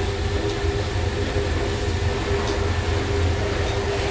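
Steady low rumble with a constant hum, typical of the exhaust hood fan over a teppanyaki grill, under a light sizzle from the griddle.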